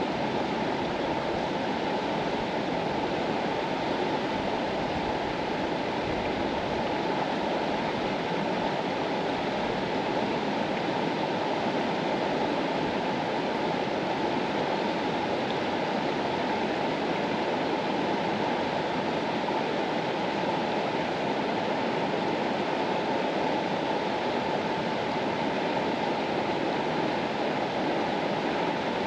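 Mountain river flowing: a steady, even rush of running water with no breaks or changes.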